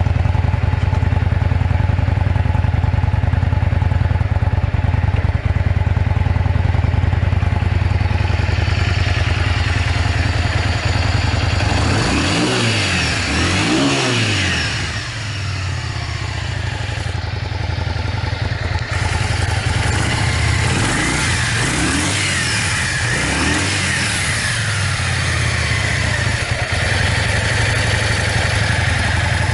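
Yamaha Drag Star 400 Classic's air-cooled V-twin running at a steady idle, then revved up and back down several times from about twelve seconds in. It runs without abnormal noises, as the seller describes it.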